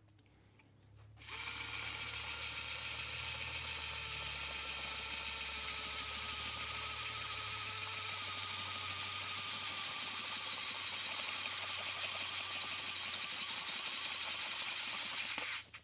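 Vessel 220USB P1 cordless electric screwdriver running an 8-32 self-tapping bit into a hole in a steel electrical box: a steady motor whine starting about a second in, sagging slightly in pitch under load and stopping near the end. It drills the hole out but lacks the torque to cut the threads.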